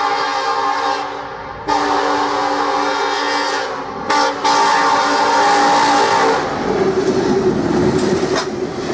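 Norfolk Southern diesel locomotive's air horn sounding the grade-crossing signal, long, long, short, long; the first long blast is already sounding and ends about a second in, and the last ends a little past six seconds. The locomotive and its freight cars then rumble past close by.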